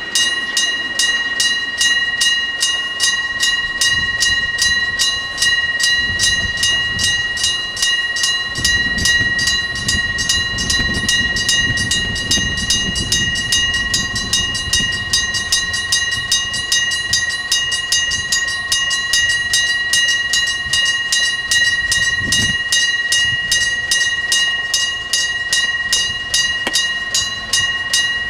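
Japanese electric-bell level-crossing alarm, a hammer rapidly striking a gong in an even, continuous series of ringing strikes, warning that a train is coming. The low rumble of a train swells under it partway through.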